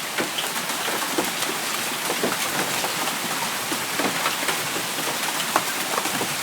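Heavy rain pouring down steadily, with scattered sharp ticks of hailstones, about half an inch across, striking.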